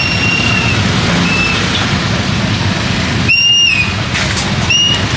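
Motorbike traffic running past at close range: a steady engine rumble and road noise. Several short high-pitched beeps cut through it, the longest and loudest about three seconds in.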